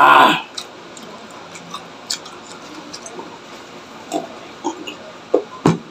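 A person drinking water from a glass mug: a loud short burst right at the start, then small wet mouth clicks, sips and swallows scattered through, with a sharper click near the end.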